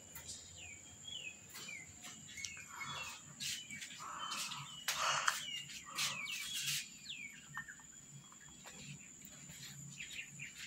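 Small birds chirping: many short, quick falling chirps, scattered irregularly, with a brief rustling burst about halfway through.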